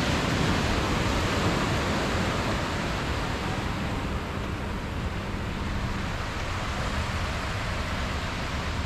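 Sea waves breaking and washing up a sandy beach: a steady rush of surf, with a faint low hum underneath.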